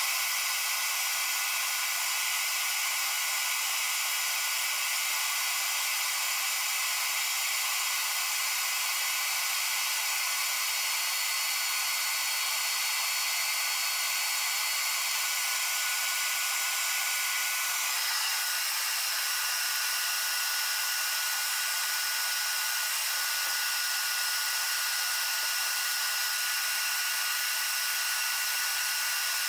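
Shop vac running steadily, sucking debris out of a dryer vent duct through its hose. Its tone shifts slightly about two-thirds of the way through.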